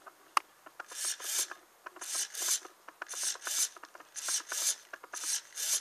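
A nitro RC car's throttle servo buzzing in short pairs, about once a second, as the transmitter's throttle trigger is pulled and released, driving the carburettor open and shut. Light clicks come between the strokes, and there is one sharper click about half a second in.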